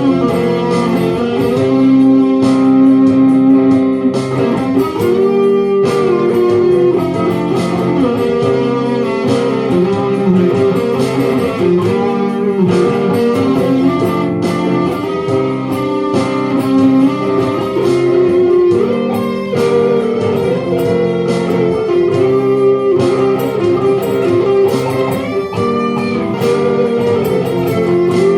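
Layered guitar parts playing an instrumental passage, built up from repeating loops on a loop station, with plucked melodic notes over a sustained chordal bed.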